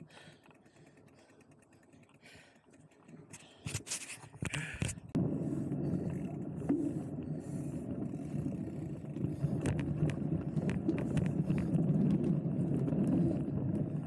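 Mountain bike rolling over a dirt trail: a steady low tyre-and-trail rumble with scattered clicks and rattles, starting about a third of the way in after a quiet stretch with a few scrapes.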